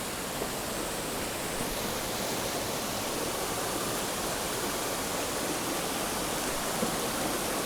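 Steady rush of a swollen mountain creek's water flowing over rocks.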